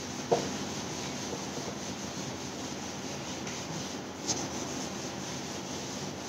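Whiteboard eraser rubbing steadily across a whiteboard as the writing is wiped off, with two short knocks, one about a third of a second in and one about four seconds in.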